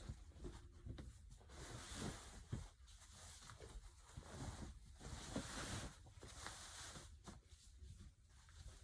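Soft, irregular rustling and handling of clothes and shoes, with a few light knocks.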